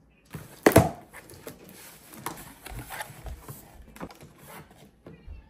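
Cardboard drinks case being torn open, with one loud sharp rip about a second in, followed by rustling of the cardboard and small knocks as plastic bottles are pulled out.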